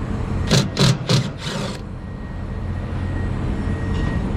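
Four quick scraping, shuffling noises in the first two seconds as a heavy part of an HVAC outdoor unit is handled and lowered by hand, over a steady low rumble.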